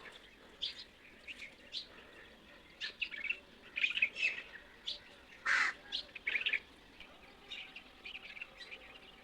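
Small birds chirping: many short, high chirps in an irregular scatter.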